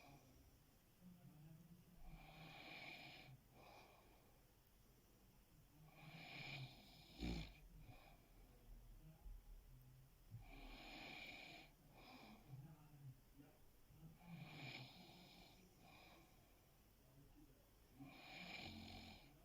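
A person snoring faintly in sleep: about five snores, one roughly every four seconds. A short sharp click about seven seconds in.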